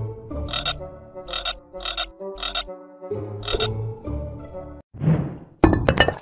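Cartoon croaking, a run of short croaks over about four seconds, then a whoosh and a quick clatter of knocks near the end as stone letters drop into place.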